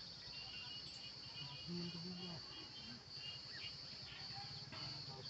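Steady high-pitched insect drone with short high chirps over it, and faint distant voices briefly about two seconds in.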